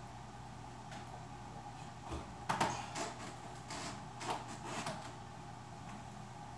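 Handling noise: a cluster of short clicks and light knocks, about two to five seconds in, as a guitar amplifier head and its cables are handled, over a steady faint hum.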